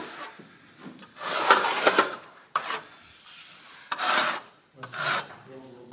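Hand trowel scraping across carpet adhesive on the floor in four rough strokes, the longest about a second in, as the adhesive is spread out for laying carpet.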